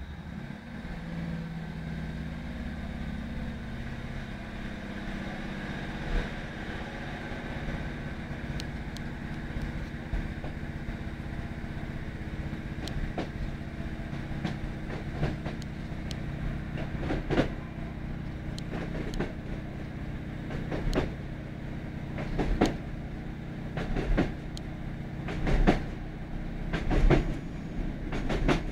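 Inside a Class 156 Sprinter diesel multiple unit under way: the underfloor Cummins diesel engine drones steadily while the wheels click over rail joints. From about halfway through, the clicks come in pairs, closer and closer together as the train gathers speed.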